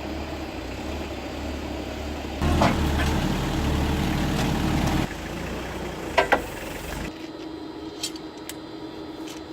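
Rough-terrain forklift engine running steadily. It gets louder for a couple of seconds from about two and a half seconds in, with a sharp metallic clank then and a double clank about six seconds in as the skid-steer hitch takes up the snow blade. The engine sound drops away near the end, leaving faint clicks.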